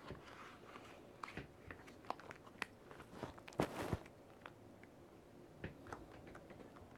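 Long black latex gloves handled and rubbed close to the microphone: scattered small clicks, crackles and squeaks of rubber, with a louder cluster a little past halfway.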